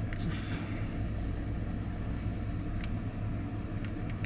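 Heat gun running steadily with a low rumble and even hiss while heat-shrink tubing is shrunk over a spliced wire, with a few faint ticks.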